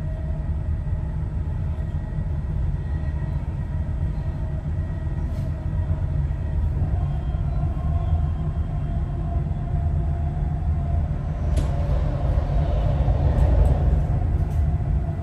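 Dubai Metro electric train running between stations, heard from inside the carriage: a steady low rumble with a faint whine that grows stronger in the second half, and a few light clicks near the end.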